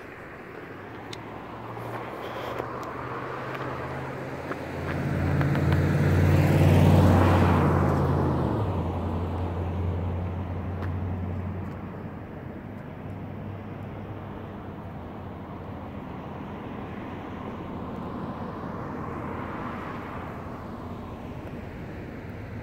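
A car drives past, engine and tyre noise swelling to loudest about seven seconds in and fading away by about twelve seconds. A second, fainter vehicle passes near the end.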